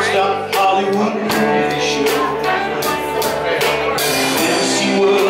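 Live rock band playing: guitars, bass and drums keeping a steady beat, with singing voices over them.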